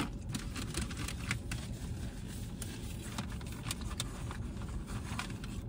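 Steady low rumble inside a car, with scattered small clicks and rustles from people eating fast food and handling its wrappers.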